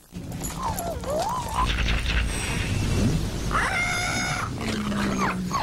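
Pet animals calling: a wavering, whistle-like call that dips and rises again about half a second to a second and a half in, a longer, fuller call about four seconds in, and short falling calls near the end, over a soft low rumble.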